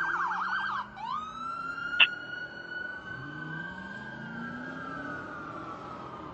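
Fire engine's electronic siren switching from a fast yelp to a slow wail that rises and then slowly falls. The truck's engine rises in pitch as it accelerates, and there is a sharp click about two seconds in.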